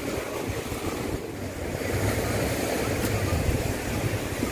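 Wind buffeting the microphone in a low, uneven rumble, over a steady wash of beach surf.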